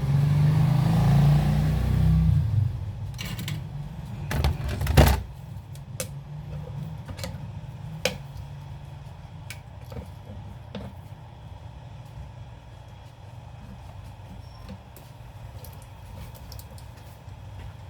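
A low rumble for the first couple of seconds, a loud knock about five seconds in, then scattered light clicks and taps of small parts and tools being handled while a speaker's crossover capacitors are swapped.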